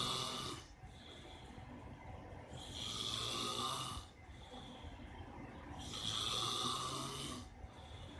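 A man snoring in his sleep: long snores about every three seconds, each lasting over a second, with quieter breathing between. The tail of one snore is at the very start and two full snores follow.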